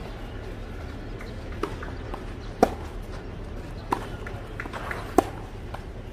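Tennis rally on a clay court: three sharp racket-on-ball strikes about 1.3 seconds apart, with fainter ticks of footsteps and ball bounces between them.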